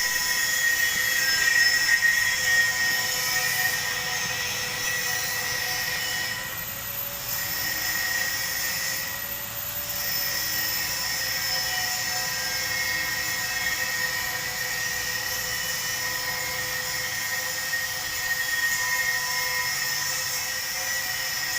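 Arc welding on a pipe: a steady hiss with a steady hum and whine, the hiss thinning briefly twice near the middle.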